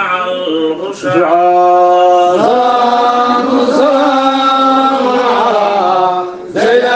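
Vocal chanting of a Sufi qasida, the voice holding long drawn-out notes that bend slowly in pitch, with a fresh phrase starting about a second in and another near the end.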